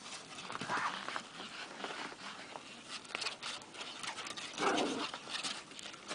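Dogs romping in snow: a steady scatter of crunching and scuffling, with a short dog vocal sound about a second in and a louder one near the end.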